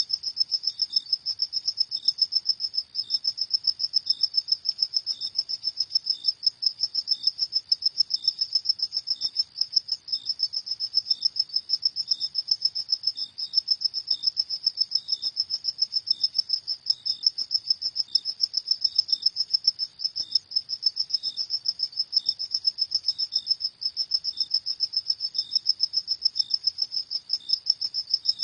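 Crickets chirping at night in fast, even pulses, a continuous high-pitched trill, with fainter, slower chirps from another cricket just beneath it.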